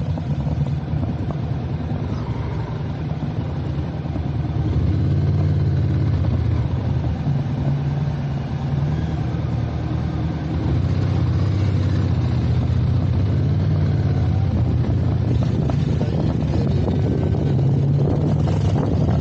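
Motorcycle engine running steadily while riding, a little louder about halfway through.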